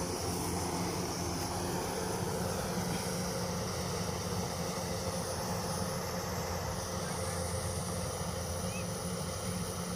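Kubota DC105X combine harvester's diesel engine running steadily at a constant speed. The machine has over 1,600 hours on it and is said to still run smoothly.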